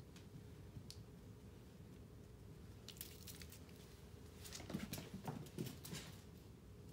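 Faint light taps and soft thumps of a kitten's paws scampering and pouncing on a hardwood floor while it plays with a small toy. A quick cluster of taps comes about three seconds in, and a louder run of thumps and taps follows around five seconds in.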